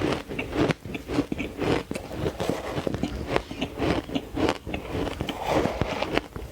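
Close-miked bites into frozen green matcha ice, a quick run of crisp, powdery crunches one after another.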